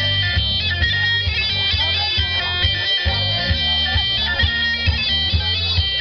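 Horon dance music: a reedy, bagpipe-like melody over a steady low drone, with a pulsing bass beat.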